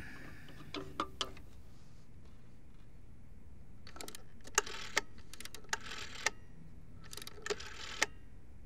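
A series of sharp, light clicks and small rattles in three groups: three clicks about a second in, a busy cluster from about four to six seconds, and another shorter cluster near the end.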